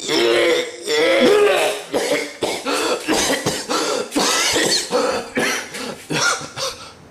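A person coughing and clearing their throat over and over, in a quick run of short, loud coughs.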